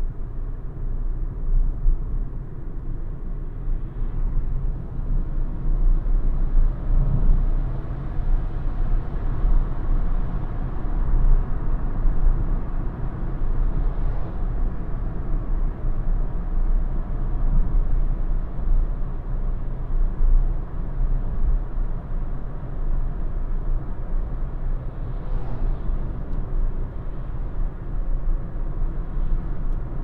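Cabin noise of a Renault ZOE R110 electric car driving at town speed: a steady low tyre and road rumble.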